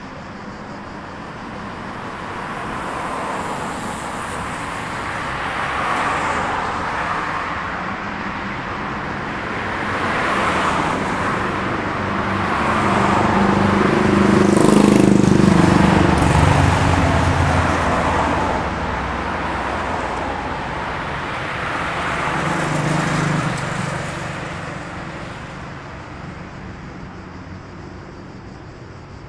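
Road traffic with cars passing one after another, each swelling up and fading away over a steady background rumble; a heavier vehicle with a deep engine note passes about halfway through, the loudest moment.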